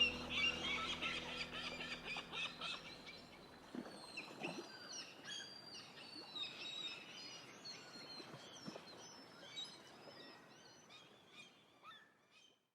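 Birds chirping and calling, with many short twittering notes that thin out and fade away near the end. Soft background music dies away in the first few seconds.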